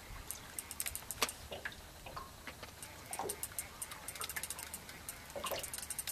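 Spinning reel ticking in quick runs of sharp clicks while a heavy cod pulls against the bent rod.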